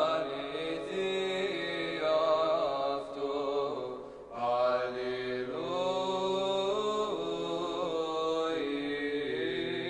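A young man chanting a hymn of the Orthodox church in long, slowly moving melodic phrases, with a steady lower note held beneath the melody. There is a short pause for breath about four seconds in.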